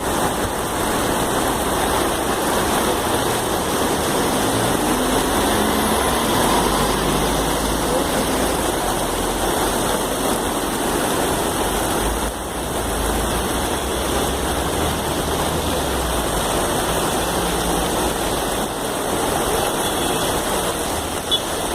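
Heavy rain pouring steadily on a city avenue, with motor-vehicle engines running in the traffic beneath it; the low engine rumble is strongest in the first half.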